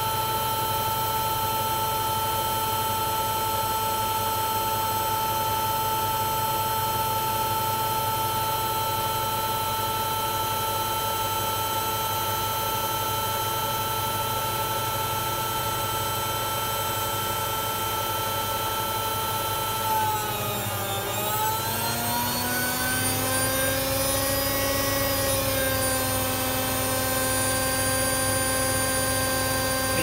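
Hoover Ecologic 1300 front-loading washing machine on an empty, dry test spin at high speed, its motor and drum giving a steady whine. About two-thirds of the way through, the pitch dips briefly, then climbs back and settles on a new steady note as the spin speed changes.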